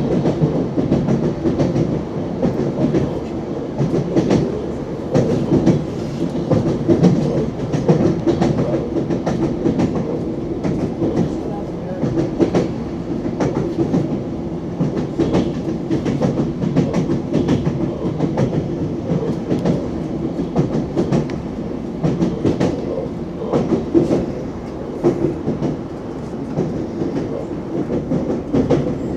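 Wheels of an ES2G Lastochka electric train knocking irregularly over rail joints as it runs, over a steady rolling rumble.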